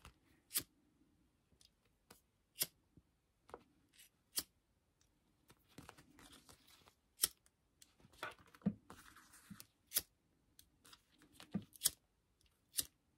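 Quiet handling of stiff clear vinyl and fabric: about nine scattered sharp clicks and short crinkling rustles as the stitched piece is turned over. Near the end a pocket lighter is flicked to singe the thread tails.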